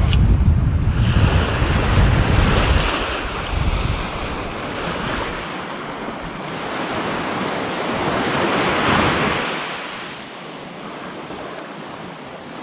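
Small ocean waves breaking and washing up a sandy beach, swelling and easing, with wind buffeting the microphone as a low rumble for the first few seconds.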